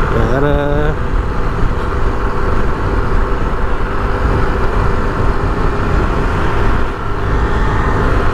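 Motorcycle engine running steadily under way, heard with heavy wind and road rumble on the helmet-mounted action camera's mic, with a brief rising tone about half a second in.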